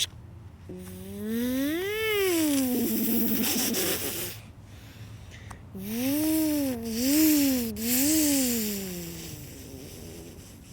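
A person imitating a car with their voice. First comes one vroom that rises and falls in pitch and breaks into a rasp, then a second with three quick rises and falls, like an engine revving.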